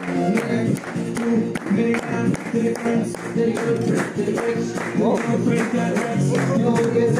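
Group singing over music, with a steady beat of sharp claps about two or three times a second.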